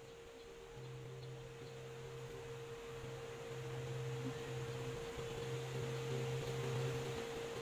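A steady high-pitched hum, with a fainter low hum that comes and goes, over a soft hiss that grows louder from about halfway through.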